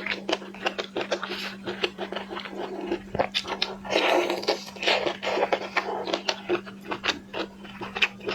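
Close-miked eating of shrimp: many short crisp cracks and crunches of shell, with chewing and scraping, coming irregularly in quick succession over a steady low hum.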